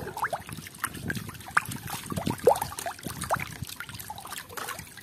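Water sloshing and splashing in a plastic tub as a hand swishes a small toy through it, with irregular little plops and bubbly gurgles.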